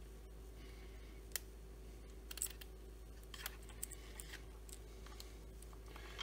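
Faint, scattered small clicks and light scrapes from hands handling small parts at a chainsaw's ignition coil, about one every second, over a steady low hum.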